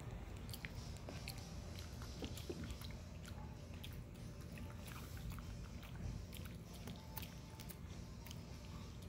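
Chihuahua eating from a bowl: irregular, quiet wet chewing and smacking clicks of teeth and tongue.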